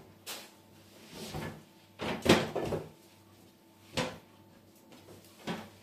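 Kitchen tidying: a handful of separate knocks and clatters as things are put away and set down, the loudest cluster about two seconds in.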